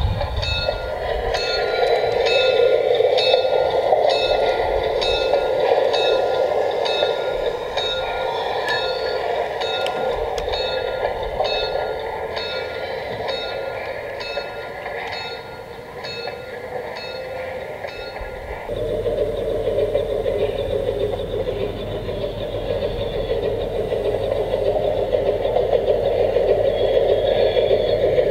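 Garden-scale model train running on outdoor track: a steady whirring from motor and gears, with a regular clicking of about one and a half to two clicks a second. About two-thirds of the way through, the sound changes abruptly to a steadier whir with a low hum and no clicking.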